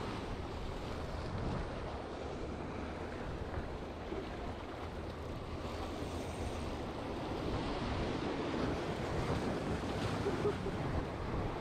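Small waves washing and foaming against jetty boulders, a steady surf wash that swells louder in the second half, with wind on the microphone.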